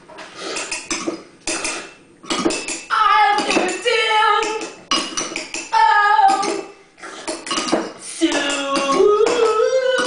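Cutlery, pots and dishes being struck and clattered as makeshift percussion, with a woman's wordless singing or vocalising joining in over them from about two and a half seconds in.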